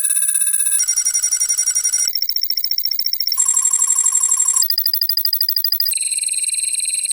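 Synthesized "robot calculating" computer sound effect: rapidly pulsing electronic beeps that warble like a ringing bell and jump to a new set of pitches about every second and a bit, six changes in a row.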